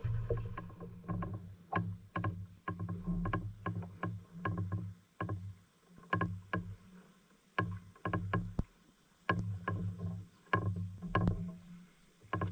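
Small wooden fishing boat rocking in choppy water: irregular sharp knocks on the hull over low, uneven water sloshing.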